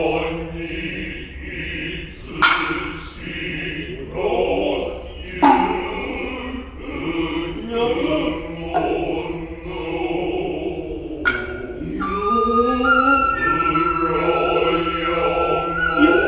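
Noh chanting (utai), with a few sharp strikes of the kotsuzumi and ōtsuzumi hand drums spaced about three seconds apart. About twelve seconds in, the nohkan bamboo flute comes in with a high held tone.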